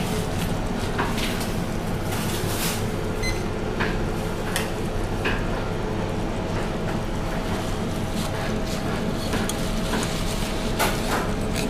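Sugar syrup boiling in a stainless steel saucepan on an induction hob, cooking toward 121 °C, the soft-ball stage for Italian meringue. Under it runs a steady mechanical hum, with a few light clicks and knocks.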